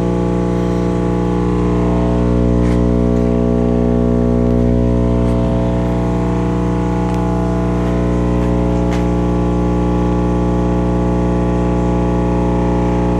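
Psi Platform 3 18-inch subwoofer driven directly by wall-socket AC mains, its cone pumping out a loud, steady low hum with buzzing overtones. A few faint ticks sit under the drone.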